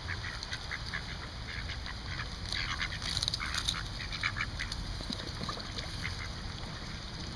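Several mallard ducks quacking in short calls, bunched most thickly about halfway through, over a low steady rumble.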